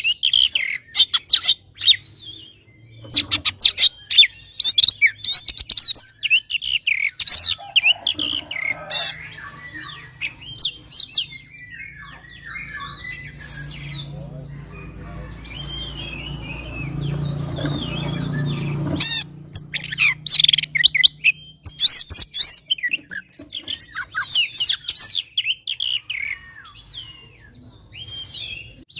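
Oriental magpie-robin (kacer) singing its rapid, varied challenge song of sharp whistled phrases, the aggressive fighting song aimed at a rival. Midway the song thins while a low hum builds, then cuts off suddenly before the bird's phrases come back thick and fast.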